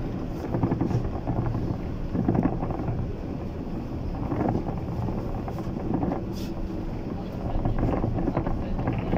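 Inside a Bogdan T90110 trolleybus on the move: a steady rumble of tyres and running gear on the road, with a low steady hum underneath.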